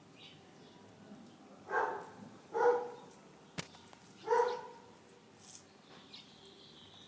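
Three short animal calls within about three seconds, with a sharp click between the second and third.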